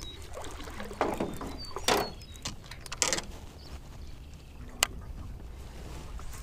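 Scuffs and knocks of movement on an aluminum jon boat, coming a second or so apart, then a single sharp click near five seconds in.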